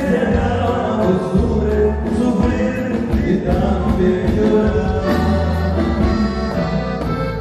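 Regional Mexican band music led by a button accordion over a steady bass line, with a man singing.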